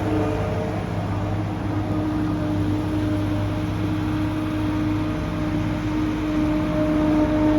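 John Deere 260 skid steer's diesel engine running at a steady speed, a constant pitched hum.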